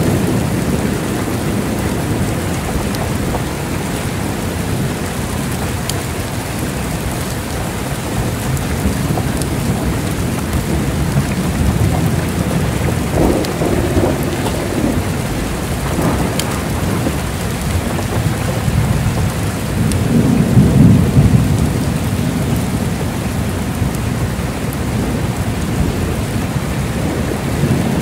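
Heavy rain falling steadily with low rolling thunder. A louder rumble swells about two-thirds of the way through.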